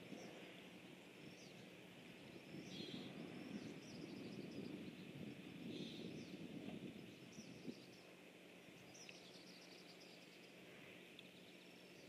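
Faint outdoor ambience: scattered short, high bird chirps and calls over a steady background hiss and low rumble.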